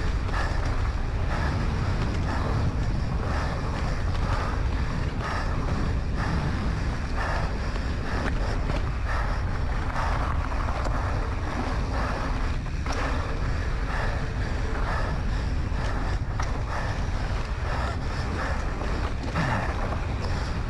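Wind buffeting the microphone during a fast downhill ride, with a rider's heavy breathing coming and going throughout and an occasional knock from the trail.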